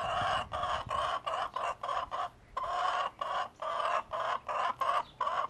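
A hen clucking over and over in a fast, unbroken run of short calls, about three a second.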